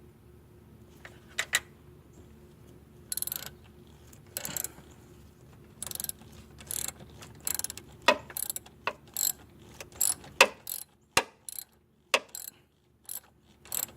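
Hand socket ratchet clicking as a mounting bolt is run in on the alternator. A few scattered tool clicks come first, then from about six seconds in the ratchet goes in short strokes about twice a second.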